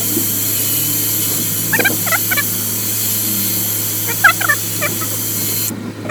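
Steady spraying hiss, as of compressed air or an aerosol being blown into a car's rear sill drain hole, cutting off abruptly near the end.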